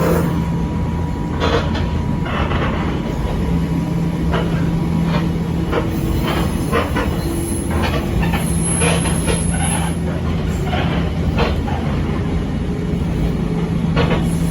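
Echizen Railway 5001-series electric railcar running, heard from inside: a steady rumble of wheels on rail with frequent short knocks of wheels over rail joints, and a low motor hum that rises and drops out several times.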